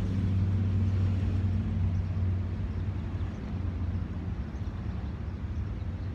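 Low, steady engine drone, louder for the first two seconds or so and then easing a little, over outdoor background noise.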